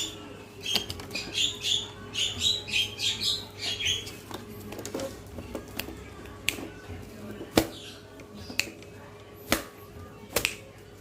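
Bird calls: a quick series of about eight high chirps for a few seconds, then a few scattered sharp clicks.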